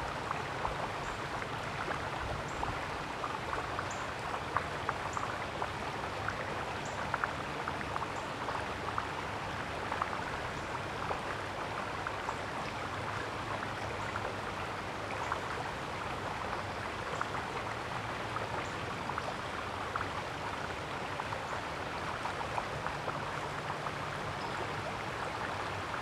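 Steady rushing outdoor background noise, with faint, short, high chips recurring about once a second.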